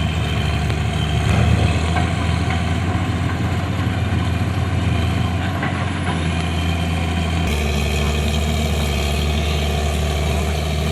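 Heavy diesel machinery engine running steadily with a low, even hum; its note changes abruptly about two-thirds of the way through.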